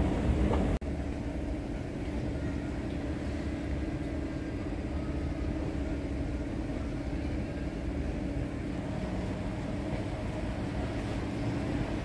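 Steady low rumble with a constant hum, the background noise of a large airport terminal hall. About a second in it breaks off sharply and then goes on a little quieter.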